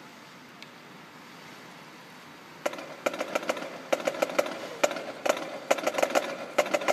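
Marching band drumline on snare drums, entering about two and a half seconds in with a rapid, rhythmic run of sharp strokes after a quiet stretch.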